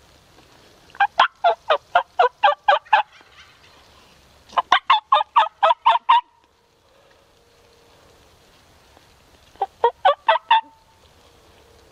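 A turkey call yelping like a hen in three loud runs, each a quick string of notes about five a second. The first two runs last about two seconds each and the last about one second, near the end.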